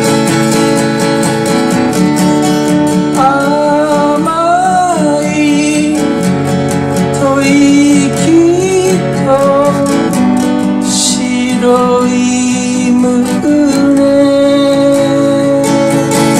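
Martin D-45 acoustic guitar strummed in a steady folk rhythm. Over it runs a lead melody of long, wavering notes that bend in pitch.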